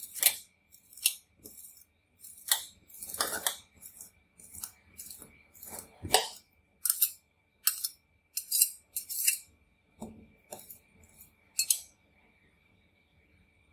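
Metal spatula scraping across a sheet of frozen Oreo ice cream on a steel cold plate in short, irregular strokes, about twenty of them, stopping near the end. A faint steady high whine runs underneath.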